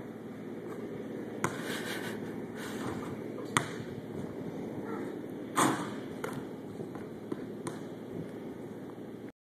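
A basketball bouncing on a concrete floor and hitting the backboard and rim: a few separate sharp thuds, the loudest about halfway through, over a steady low hum.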